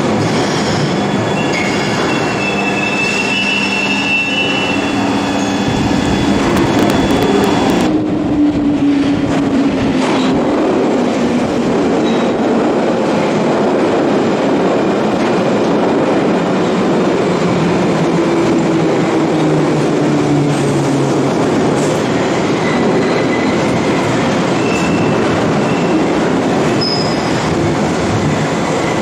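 A London Underground 1972 Mk2 Stock tube train running through a platform: a steady, loud rumble of wheels on rail with a low whine that slides slowly in pitch. High wheel squeal rings out during the first few seconds.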